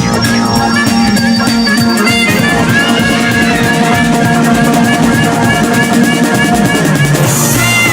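Music with drums and guitar, a steady beat running throughout.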